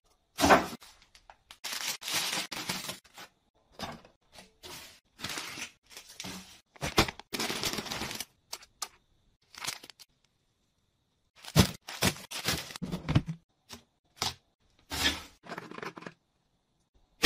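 Food packaging being handled and opened while restocking a fridge: rustling and tearing of packets in short spells, with sharp clicks and knocks of items and containers being set down.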